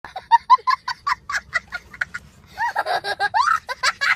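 A man laughing in quick 'ha-ha-ha' bursts, about five a second, that trail off after about two seconds, then carry on in longer, higher laughing sounds that rise in pitch.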